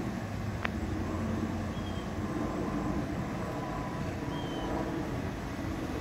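2014 Hyundai Santa Fe driving slowly along the street, a steady low engine and tyre sound, its engine running again after a repair of damaged bearings. A single sharp click comes just under a second in.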